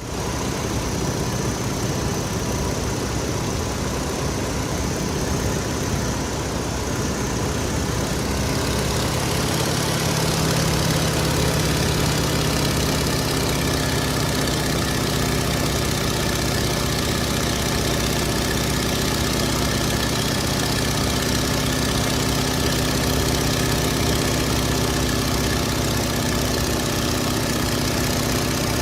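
Stearman biplane's radial engine running steadily, heard from the open cockpit with the rush of air around it. About eight seconds in, the engine note shifts and a steadier hum settles in.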